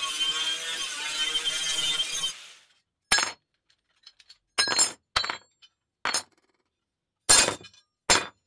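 Angle grinder stripping rust off a steel wheelbarrow bracket, running steadily and stopping a little over two seconds in. Then cleaned steel brackets and plates are set down on a wooden table one after another, about six short metallic clinks.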